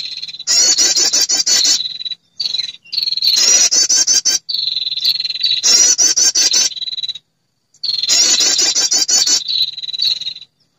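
Lure recording of a female perenjak calling to draw in males. Repeated bursts of fast, chattering high trills, each one to three seconds long, with short pauses between.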